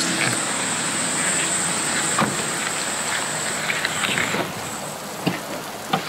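Heavy tropical rain falling steadily, with a steady high-pitched insect buzz that stops about four seconds in, and a few scattered knocks.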